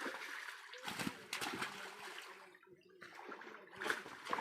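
Water splashing and sloshing in irregular bursts as a fishing net is hauled through shallow water.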